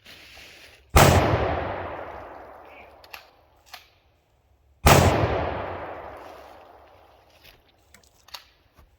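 Two 12-gauge shotgun shots from a Remington 870 Express Magnum firing Federal Trophy Copper sabot slugs, about four seconds apart. Each blast is followed by a long echo fading over about three seconds, with a couple of light clicks between them.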